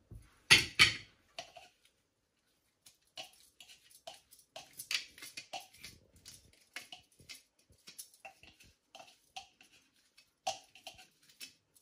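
A flat wooden spatula scrapes a wet chopped vegetable paste out of a plastic food-chopper bowl into a glass mixing bowl. There are two louder knocks about half a second in, then a run of light, irregular scrapes and taps against the plastic.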